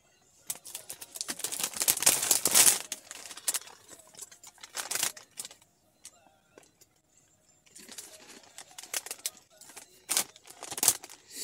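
Plastic snack packaging crinkling and rustling as a bag of chips and a tub of onion dip are opened and handled, loudest in a dense stretch about two seconds in, with more bursts of rustling and clicking later.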